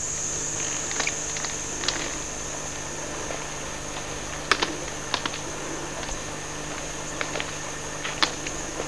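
Forest insects keeping up a steady, high-pitched drone, with scattered sharp crackles and snaps of dry leaves and twigs as someone moves through the undergrowth.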